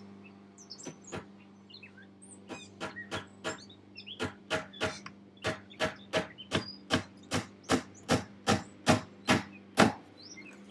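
Claw hammer tapping a small nail into the pine trim of a wooden box. A few light taps at first, then a steady run of about two to three blows a second that grows louder as the nail goes in.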